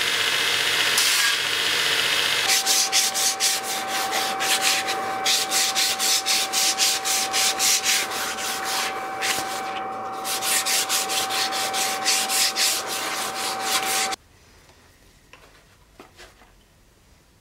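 A belt sander grinds a thin wooden scabbard strip, then the strip is sanded by hand in quick back-and-forth strokes, about two or three a second, over a steady whine. The sound cuts off suddenly about three seconds before the end, leaving faint ticks.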